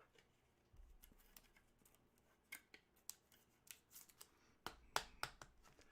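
Faint clicks and rustles of trading cards being handled, scattered irregularly, with a few sharper clicks about five seconds in.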